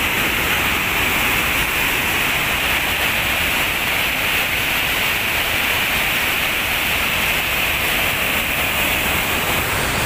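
Dumbur waterfall's white water rushing steadily down its channel, a constant loud rushing noise.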